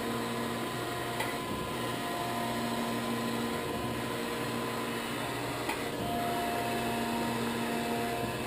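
Grand Rapids Model 560 surface grinder running: a steady machine hum from the wheel spindle and hydraulic system, with tones that switch in and out as the hydraulic wheel dresser traverses, and two light clicks.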